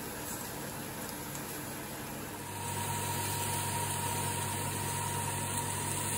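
Steady hum and hiss of food cooking on a cast-iron griddle over a gas hob. About two and a half seconds in, the sound cuts to a slightly louder, deeper hum with a faint steady high tone.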